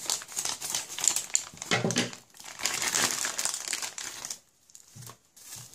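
Plastic postal mailer bag crinkling and rustling in irregular bursts as it is cut with scissors and pulled open by hand.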